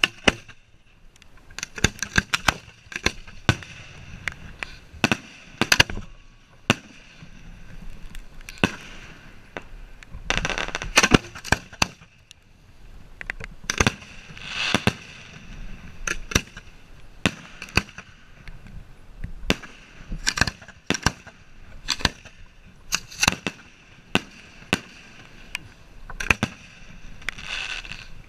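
Fireworks shells going off from racks of mortar tubes on the firing line: many sharp bangs at uneven intervals, several a second at times, with denser clusters about ten and fifteen seconds in.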